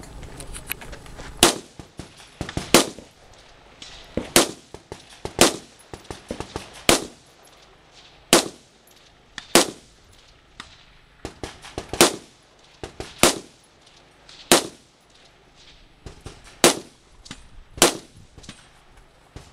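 Rifle fired from the prone position in a practical shooting stage: about a dozen sharp, loud shots, roughly one every second or so, with a longer pause about ten seconds in. Fainter cracks sound between the main shots.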